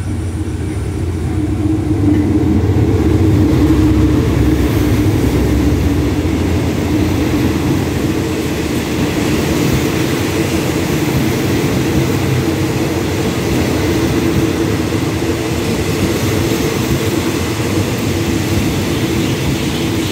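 A passenger train hauled by a GE-built GEA-class diesel-electric locomotive pulls slowly into the station. The locomotive's engine drone is loudest about four seconds in, then the coaches roll past with a steady rumble and hum on the rails.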